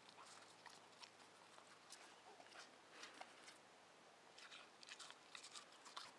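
A Patterdale terrier biting and chewing a snowball from a hand: faint, scattered crunches of packed snow, coming closer together near the end.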